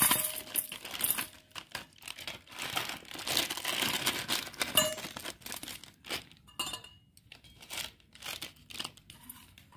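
Plastic wrapper of a Maggi instant-noodle packet crinkling as it is handled and emptied, the dry noodle block sliding out into a stainless steel bowl. The rustling is busiest in the first five seconds and thins out after about six.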